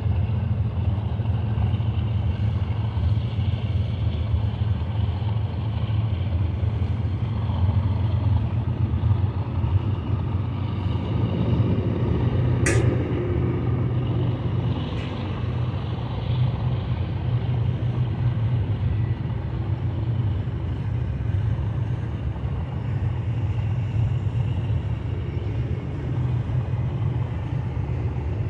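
BNSF double-stack intermodal train's well cars rolling past, a steady low rumble of steel wheels on the rails. One short sharp click is heard about halfway through.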